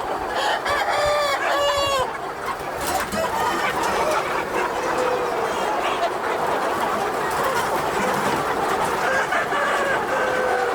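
A large flock of free-range native chickens clucking and calling together in a dense, continuous chorus, with a loud drawn-out call standing out near the start.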